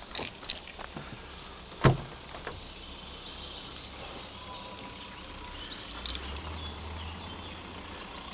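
Outdoor background noise with a few light clicks and one sharp, loud knock about two seconds in.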